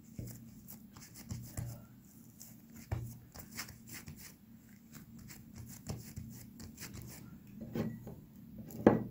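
Hands patting and rubbing a sheet of buttered dough on a silicone baking mat: scattered soft slaps and rubs, with a louder tap just before the end.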